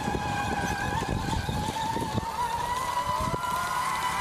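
A tracked MUTT robotic vehicle driving over dry ground: a steady high whine from its battery-electric drive, rising slightly in pitch about two seconds in, over the crunch and rattle of its tracks.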